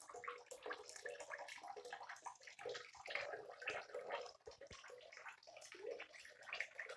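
A tap runs into a sink full of bath water, with small irregular splashes and trickles as a baby monkey moves about in the water.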